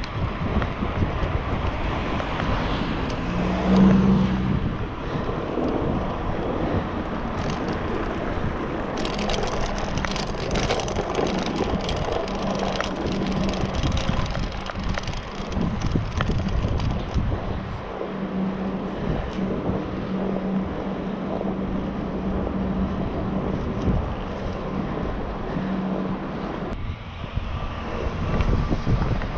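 Wind buffeting the microphone over the tyre and road noise of a road bicycle being ridden. Several seconds of rattling clicks in the middle come from rolling over cobblestones, and a low hum comes and goes.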